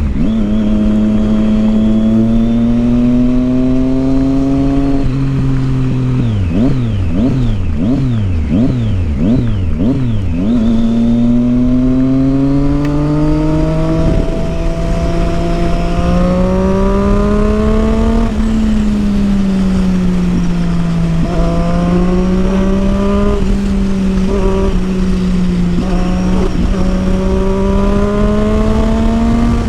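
Triumph Street Triple 675's inline-three engine through a Yoshimura exhaust while riding. The note rises and falls slowly as speed changes, and about six seconds in a quick run of throttle blips, about two a second, snaps the revs up and down for several seconds.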